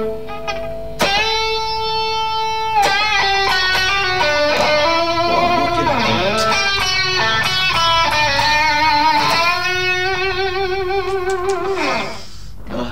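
Electric guitar played through a Valeton GP-200LT digital multi-effects pedal on its 'rock' drive preset, a little heavier than clean. It plays a lead line of held notes with string bends and vibrato, starting with a sharply picked note about a second in and ending with a downward slide near the end.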